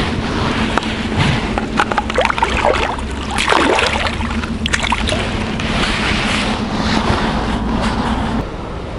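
Water sloshing and splashing, with scattered clicks and rustles, as a crucian carp is put into a green mesh keepnet and the net is handled and lowered back into shallow water.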